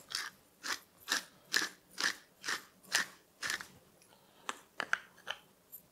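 Wooden salt and pepper mills twisted by hand, grinding in a rhythmic crunch of about two turns a second, followed by a few lighter clicks near the end.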